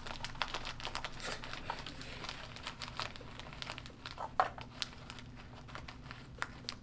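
Plastic snack bags of sunflower seeds being handled and crinkled, many small irregular crackles of the packaging.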